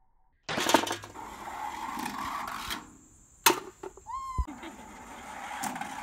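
Golf ball rolling down a rain-gutter chute with a steady rumble that stops near the three-second mark, then a sharp clack about half a second later. Just after four seconds, a short high call that rises and then holds.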